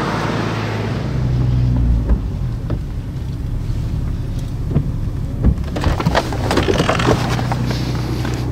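SUV engine running with a steady low hum heard from inside the cab. In the second half come a run of sharp clicks and knocks as the inside door handle is pulled and the door unlatched.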